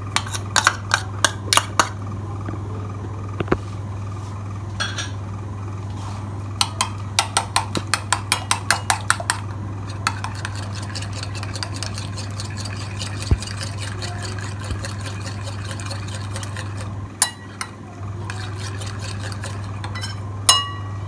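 Metal utensil whisking eggs in a glass bowl, clinking against the glass in quick runs of strikes, about four a second, with scattered single taps between runs. A steady low hum runs underneath.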